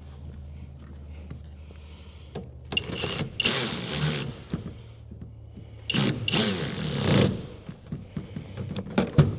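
Stiff door hardware being worked by hand, a grinding, scraping mechanism in two runs of about a second and a half each, over a steady low hum. A sharp click comes near the end.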